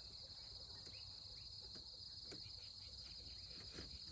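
Faint, steady, high-pitched trilling of an insect chorus, with a few soft chirps over it.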